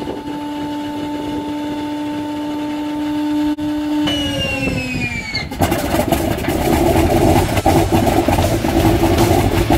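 Antonov An-2's inertia starter whining steadily at speed. About four seconds in, its pitch falls as it is engaged, and about a second and a half later the nine-cylinder radial engine catches and runs roughly.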